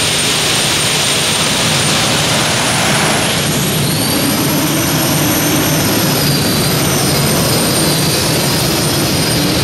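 Isotov TV3-117 helicopter turboshaft engines of a modified pulling tractor, running with a loud steady turbine roar. About three and a half seconds in, a high whine rises over it as the turbines are opened up and the tractor pulls away with the sled.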